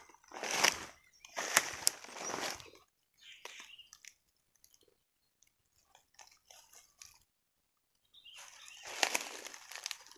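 Footsteps crunching through dry fallen leaves and twigs: a few loud steps, a stretch of softer rustling with a brief stop, then loud steps again near the end.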